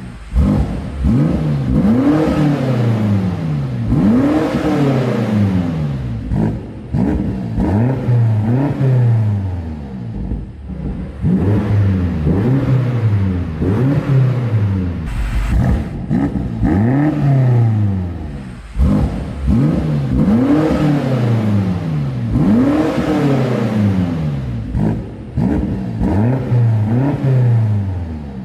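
BMW X5 M Competition's 4.4-litre twin-turbo V8 revved up and let fall back again and again, a rise and fall every two to three seconds.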